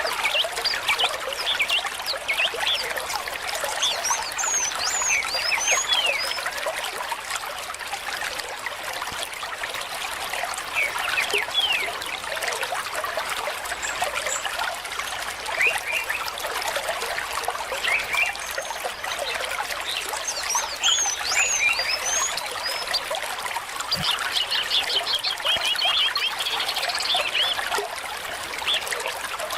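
Water trickling steadily, with small birds chirping over it: short high chirps throughout and a quick trill near the end.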